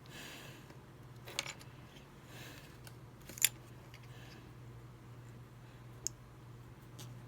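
Small plastic pieces of a tiny capsule-toy figure handled and pressed together: three sharp clicks, the loudest in the middle, with soft rustling between them.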